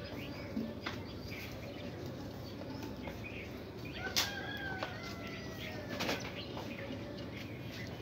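Budgerigar hen shifting in a clay nest pot: soft rustling and a few sharp clicks over a steady hiss, with faint bird chirps and whistled calls in the background.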